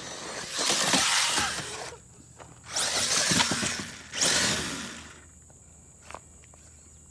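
Traxxas 1/16 Slash RC truck driving hard in loose dirt: three bursts of about a second each of spinning tyres throwing dirt and gravel, with scattered clicks and rattles.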